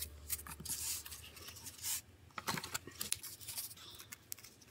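Scissors snipping and fingers pressing soft corn-starch Pittan-con craft pieces: scattered short scrapes, rubs and crisp snips.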